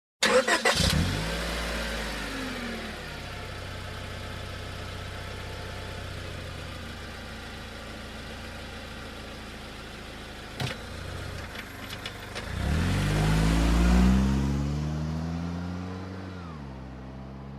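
Car engine starting: it catches with a short burst, revs up and settles into a steady idle. About ten seconds in there is a click, then a second rev that rises and falls back to idle.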